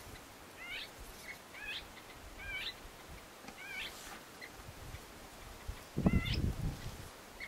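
A bird calling: a short wavering call repeated five times about a second apart, with a longer gap before the last. About six seconds in there is a brief low rumble, louder than the calls.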